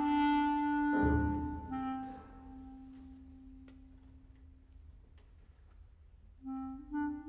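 Solo clarinet with a military wind band. The clarinet holds a long low note that fades almost to nothing; a short low accent from the band comes in about a second in. Near the end the clarinet starts a new phrase of quick notes.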